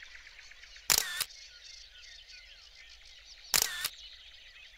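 Two shutter sounds from a Nikon Coolpix compact camera taking photos, about a second in and again about two and a half seconds later. Between them, many small songbirds sing and chirp steadily in the background.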